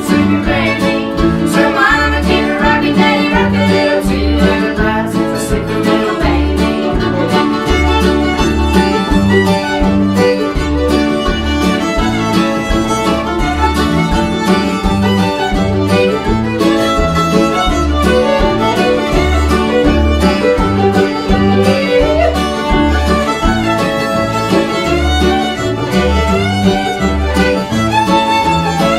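Acoustic string band playing an instrumental passage: the fiddle is prominent over mandolin and acoustic guitar, with an upright bass plucking a steady beat.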